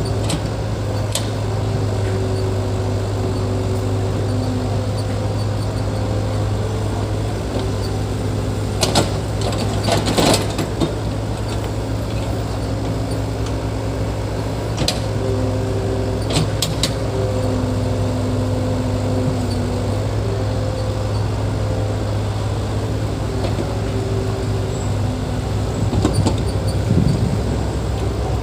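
Heavy equipment's diesel engine running steadily under load, with a few sharp metallic clanks, some about 9 and 10 seconds in and more around 15 to 17 seconds in.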